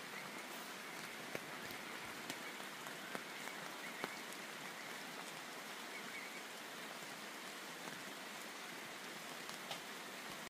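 Steady rain falling, with a few heavier drops ticking sharply now and then.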